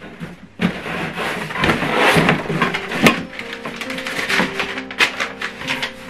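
Cardboard packaging being handled: the box and its cardboard packing insert scraping, rustling and knocking as the insert is worked loose and pulled out. Background music with held notes comes in under it partway through.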